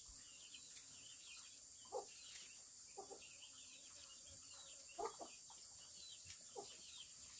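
Chickens clucking softly, a handful of short clucks spaced a second or two apart, over continuous high chirping and a steady high hiss.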